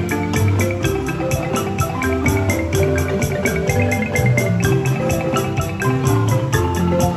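Ensemble of wooden-bar marimbas played with mallets, several parts at once, from high melody to deep bass notes, in a fast, steady pulse of repeated notes.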